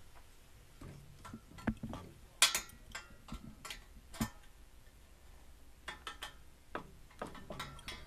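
Scattered, irregular clicks and light knocks of hand tools, a clamp and a metal bar being handled at a workbench; no power tool runs.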